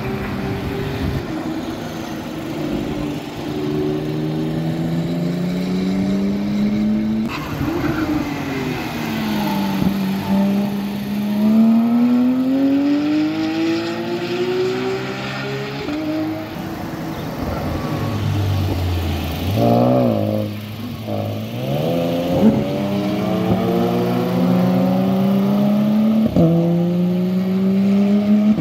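Track cars' engines working through a corner, their pitch rising and falling as they brake and accelerate. About two-thirds of the way through comes a quick run of rev blips on downshifts. Then a Porsche 911 GT3 RS's naturally aspirated flat-six accelerates away, its pitch climbing with two upshifts near the end.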